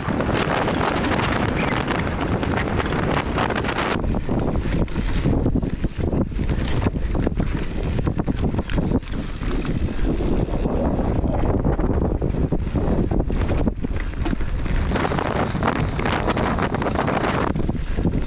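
Wind rushing over the camera microphone on a fast mountain-bike descent, mixed with the tyres rolling over dirt and rocks and frequent rattles and knocks from the bike. The hiss is heavier in the first few seconds and again near the end.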